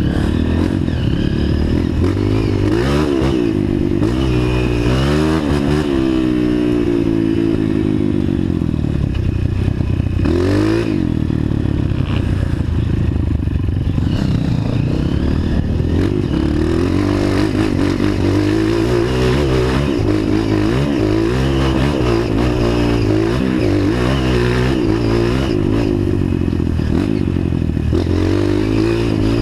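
Off-road motorcycle engine running under load, its revs rising and falling over and over as it is ridden along a trail.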